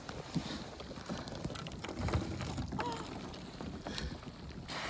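Kayak paddle strokes splashing in the water among floating brash ice, with light wind on the microphone.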